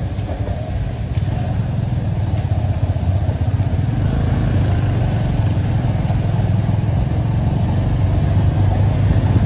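Motor vehicle running steadily: a continuous low engine and road rumble that grows slightly louder about four seconds in.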